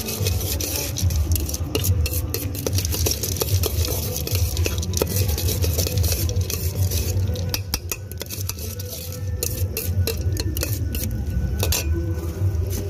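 A steel spoon stirring bhel (puffed-rice mix) in a steel bowl: quick metal-on-metal clinks and scrapes, over a steady low hum.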